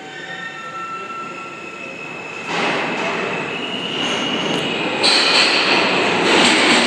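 New York City subway train pulling into the station: thin high squealing tones at first, then the train's running noise swells sharply about two and a half seconds in and grows louder again about five seconds in.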